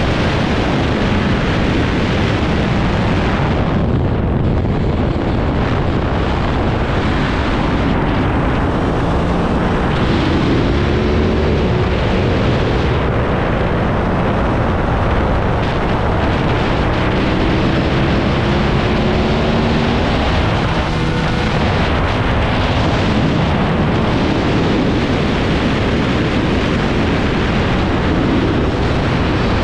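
Heavy wind rush on the microphone of a motorcycle at track speed, with the Aprilia RS660's parallel-twin engine underneath, its pitch rising in several short runs as the bike pulls out of corners.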